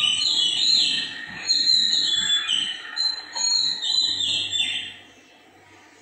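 Soundtrack of an animated lesson playing through a screen's speaker: high-pitched whistling tones in short strokes that slide up and down, stopping about five seconds in.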